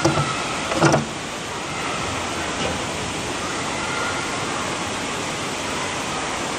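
Two sharp knocks from the metal backstroke start ledge being set in position on the starting block, about a second apart. After them comes a steady rush of churning pool water at the wall.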